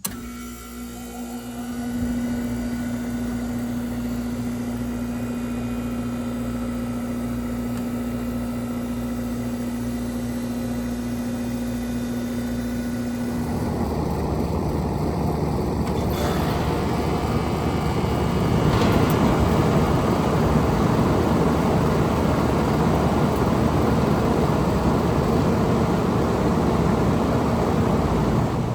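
Air conditioner outdoor unit starting up: a steady electrical hum, then about 13 seconds in a broad rush of moving air joins and builds over several seconds as the fan comes up to speed.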